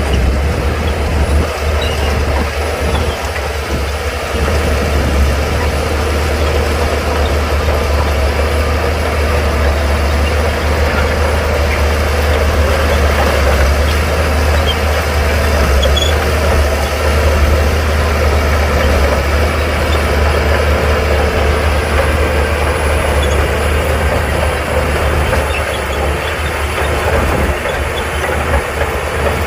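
Heavy earthmoving machine's diesel engine running steadily, a deep continuous drone with a constant hum above it.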